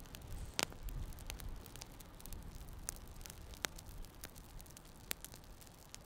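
Campfire of split sticks crackling, with sharp single pops about half a second in, near three and a half seconds and near five seconds, over a faint low rumble.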